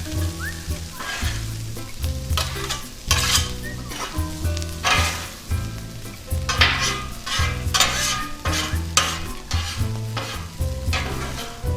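Bacon fried corn sizzling on a Blackstone flat-top griddle while a metal spatula scrapes and turns it in repeated short strokes, over background music with a bass line.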